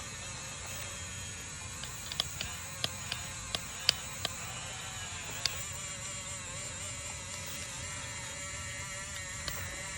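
Small electric motor of a toy RC bulldozer whirring steadily, with a run of sharp clicks and knocks between about two and five seconds in and one more near the end.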